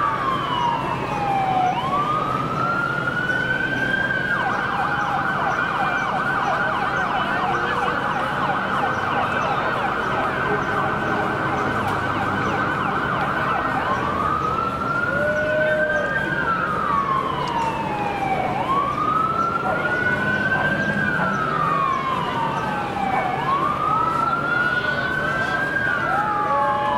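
An electronic siren wailing, its pitch rising and falling slowly every four to five seconds; about four seconds in it switches to a fast, steady warble for roughly ten seconds, then goes back to the slow wail.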